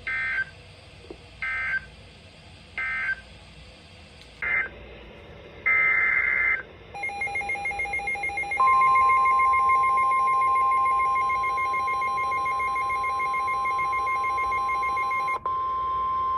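Emergency Alert System SAME data bursts: three short screeching digital bursts (the end-of-message code), then two more bursts starting the next alert. They are followed by a rapidly pulsing electronic beep and then a long steady alarm tone, the weather-radio warning alert tone that comes before a spoken warning.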